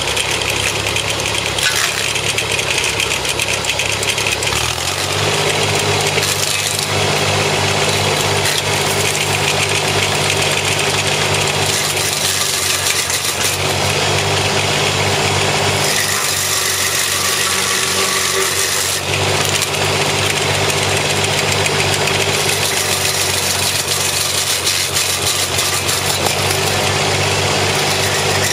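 Kubota L275 tractor's diesel engine running, driving a homemade PTO stump grinder. The engine speed steps up about five seconds in and shifts several more times after that.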